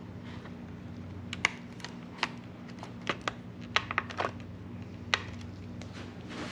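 Small metal parts of a Shimano Chronarch baitcasting reel clicking and tapping as it is reassembled, about ten sharp ticks in irregular succession, over a steady low hum.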